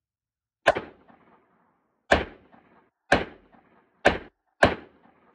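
.38 Special revolver firing five shots in a string at uneven intervals, from about a second and a half apart down to half a second, each crack followed by a short echo.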